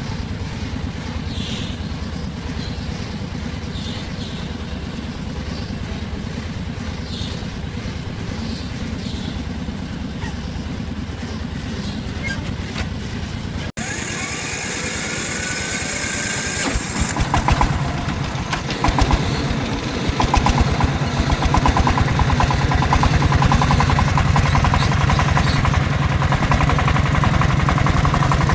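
A motor vehicle's engine running with a steady low rumble. After an abrupt cut about halfway, an engine revs up in a few surges and then runs steadily and louder.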